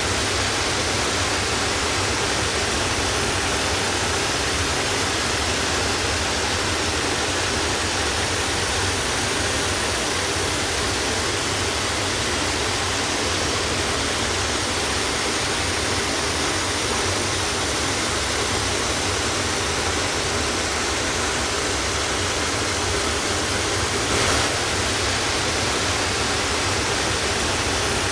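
Waterfall: water falling in a steady, unbroken rush, with a brief slight swell about 24 seconds in.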